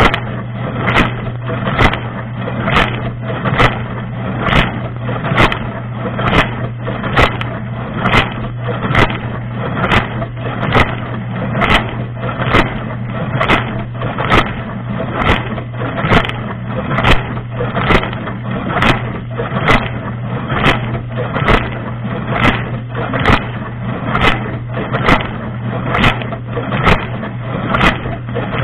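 Dishwasher running its wash cycle, heard from inside the tub: a steady hum from the circulation pump under water spraying, with a sharp splash about once a second as the rotating spray arm's jets sweep over.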